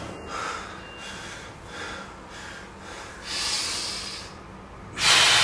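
A person breathing hard, with several short, sharp breaths through the nose, and a much louder rush of breath near the end.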